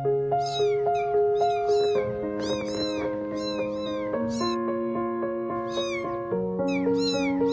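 A cat meowing over and over in short, high-pitched, falling meows, with a pause of a second or so about halfway through, over background music of sustained chords.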